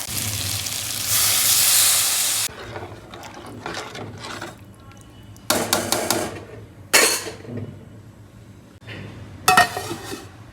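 Frying in a pan sizzles loudly, then stops abruptly about two and a half seconds in. Scattered scraping and clinking of a spoon against a metal pot follow, with three louder clatters later on.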